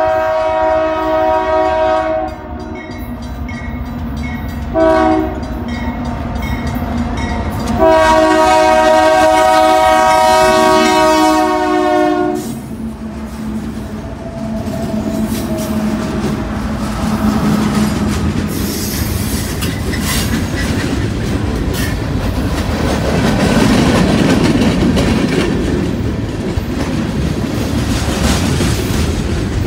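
Union Pacific freight train led by a GE C44ACM locomotive: its multi-note air horn finishes a long blast, gives a short one about five seconds in, and a long one of about four seconds from about eight seconds in. Then the diesel locomotives pass close by and the freight cars roll past with steady rumble and wheel clatter on the rails.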